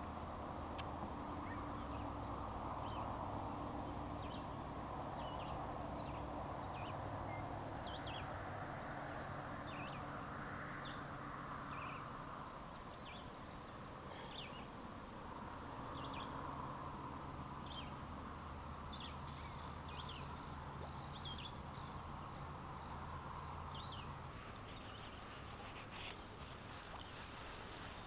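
Outdoor lakeshore ambience with birds chirping repeatedly in short calls, over a soft steady background hiss and a low steady drone that stops about 24 seconds in.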